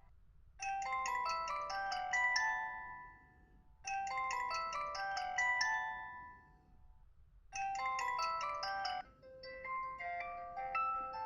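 Samsung Galaxy S4 mini ringtone: a short melody of quick, bright chime-like notes, played three times with brief gaps between. A different melodic phrase starts about nine seconds in.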